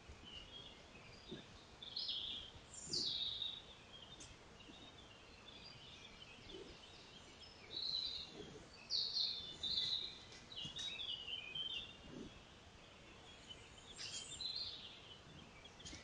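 Woodland songbirds chirping and calling in short, high-pitched phrases, coming in several bursts with quieter gaps between.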